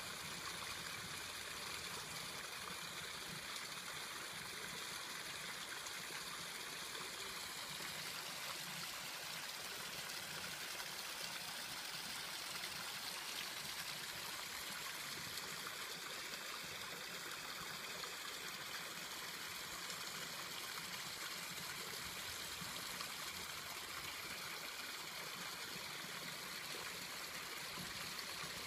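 Running water trickling steadily into a koi pond, an even, unbroken splashing. A faint high steady tone sits in the background for the first several seconds and again through much of the second half.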